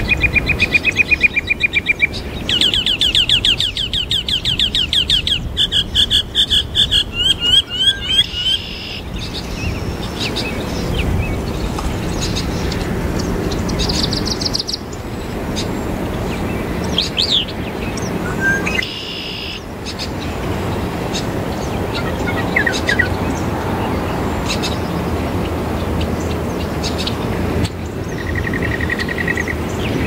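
Mockingbird singing a varied, mimicking song. It opens with a steady trill, then gives rapid runs of quickly repeated notes, then scattered short notes and whistles, with another trill near the end. Steady low background noise runs underneath.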